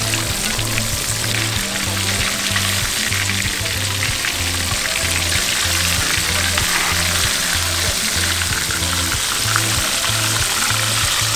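Floured whole vermilion snapper deep-frying in peanut oil in a cast iron skillet: a steady, dense crackling sizzle. Background music with a steady bass beat plays underneath.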